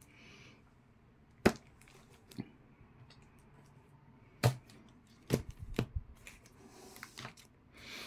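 A stack of comic books being handled: a few sharp knocks and taps, the loudest about a second and a half in and again past four seconds, a quick run of taps between five and six seconds, with light rustling of paper.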